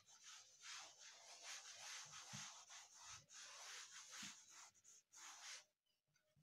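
Chalkboard being wiped clean by hand: faint, repeated rubbing strokes across the board, with a couple of small knocks, stopping about five and a half seconds in.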